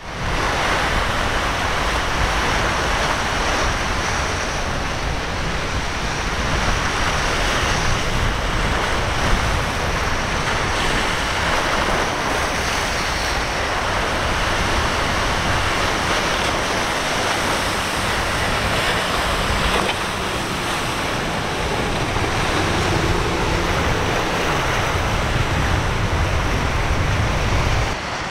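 Ocean waves and surf washing steadily, with wind buffeting the microphone.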